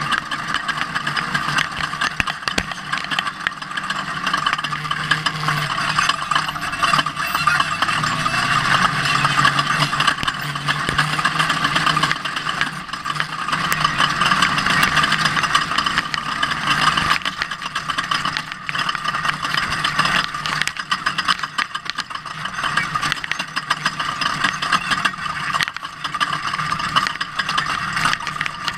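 Ford Ranger off-road race truck driving, its engine running with the pitch rising and falling, under a steady rush of noise and frequent short rattles and knocks.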